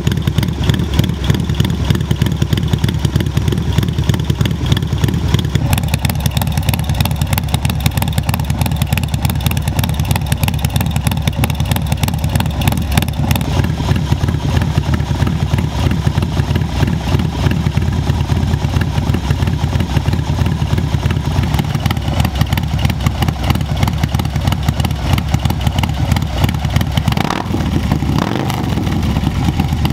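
Harley-Davidson Low Rider ST's Milwaukee-Eight 117 V-twin, in Stage 2 tune with a Cyclerama 483 cam, idling steadily through an SP Concept big bore exhaust after a cold start. The note changes briefly near the end as the throttle is worked.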